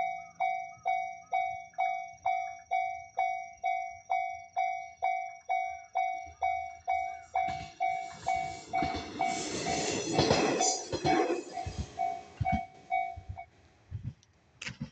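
Japanese level crossing warning bell ringing its 'kan-kan' at about two and a half strikes a second while a diesel train passes through, loudest about ten seconds in. The bell stops shortly after the train has gone.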